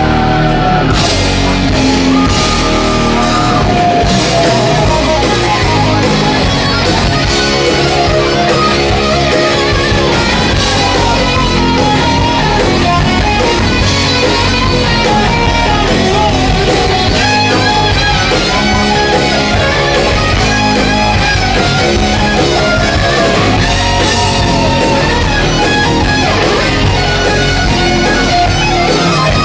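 Live rock band playing loudly, with electric guitar to the fore.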